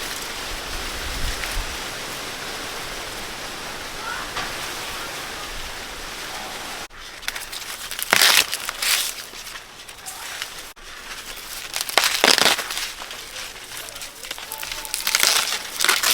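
A steady hiss for the first several seconds, then dry cornstalks and leaves rustling and crackling in several loud bursts as the plants are handled.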